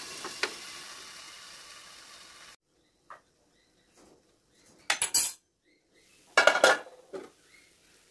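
Brinjal stir-fry sizzling faintly in a covered pan, the hiss fading away; after a break, a few loud clattering knocks of pan and lid handling, about five and six and a half seconds in, then lighter knocks of a wooden spatula stirring the vegetables.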